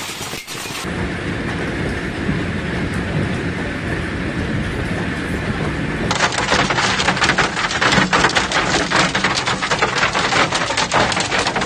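Heavy rain and hail storm: a steady rush of rain, then, from about six seconds in, a denser run of many sharp hits, as of hailstones striking a surface.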